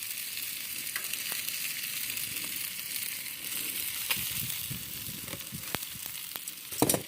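Food sizzling steadily on a propane flat-top griddle, with a few sharp clicks and one louder knock near the end.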